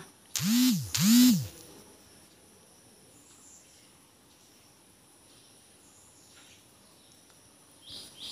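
A cow lowing twice in quick succession: two short, hoarse calls that rise and fall in pitch, about half a second each. Then faint outdoor background with insects and birds chirping.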